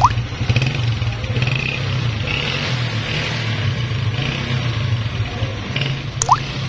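Honda CG 125's single-cylinder four-stroke engine running steadily, from an engine the mechanic calls in very bad condition with a lot of extra noises and heavy smoke from a loose, worn piston. Two short rising chirps cut in, one at the start and one near the end.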